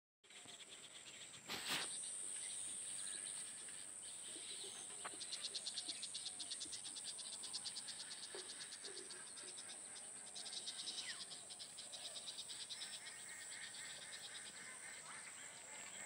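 Insects chirping in a harvested rice field: a steady high-pitched buzz, with runs of rapid trilling pulses about five seconds in and again around ten seconds. A single sharp knock sounds near the start.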